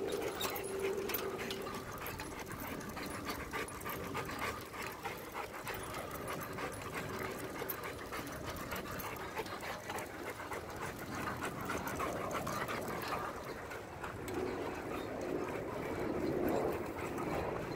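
German Shepherd panting as it runs beside a moving bicycle, with light clicking throughout and a steady hum in the first half.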